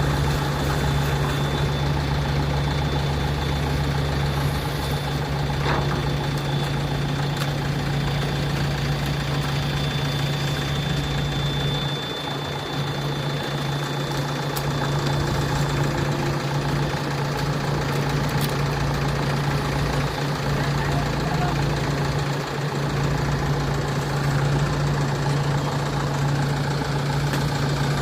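Diesel engine of heavy earthmoving machinery running steadily at a constant speed, a continuous low hum.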